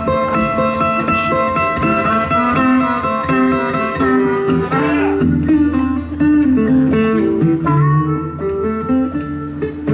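Live acoustic blues in A: two acoustic guitars playing an instrumental passage, with long held lead notes over the picking in the first few seconds.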